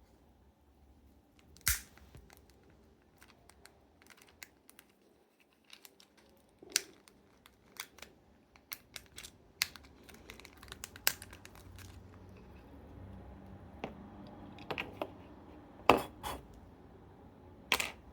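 Irregular sharp clicks and taps of small objects being handled, over a faint low hum that grows slightly about halfway through.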